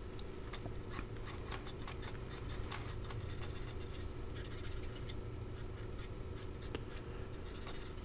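Flat hand file scraping over a small steel pin clamped in a vise, over a steady low hum.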